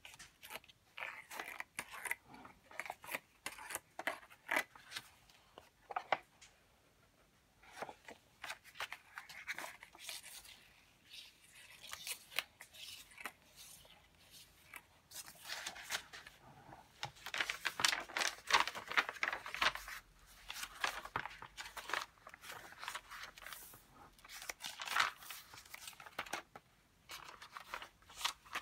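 Paper rustling and crinkling as the pages and an envelope pocket of a handmade junk journal are handled and turned, in irregular bursts with a brief lull about seven seconds in and the busiest handling past the middle.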